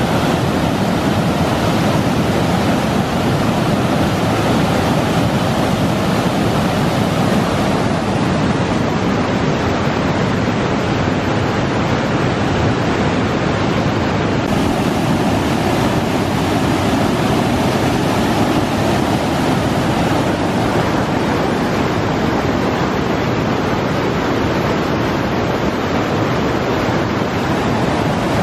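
Whitewater of a river waterfall and rapids pouring over rock ledges: a loud, steady rush of water that holds even throughout.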